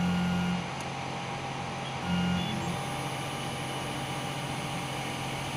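Motorized head of a WDS-720 BGA rework station moving. Its drive motor hums for about half a second at the start and again briefly about two seconds in, over a steady machine hum.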